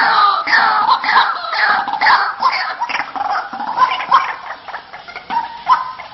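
White-breasted waterhen (ruak-ruak) calls used as a bird lure: a steady series of repeated falling notes, about two a second, fading toward the end.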